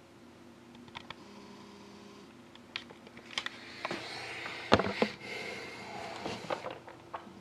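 Scattered light clicks and taps from objects being handled at a table, with some rustling and one sharper knock a little before the halfway point.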